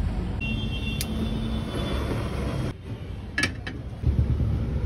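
Steady low rumble of street traffic around a roadside food stall, with a few light clicks and knocks. The background changes abruptly about three seconds in and again about a second later.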